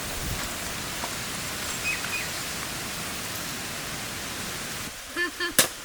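Steady hissing outdoor background noise. Near the end come two short voiced sounds, then one sharp knock.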